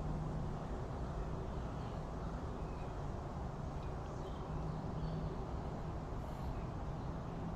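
Steady low background noise with a faint hum, with a few faint, short high chirps scattered through it.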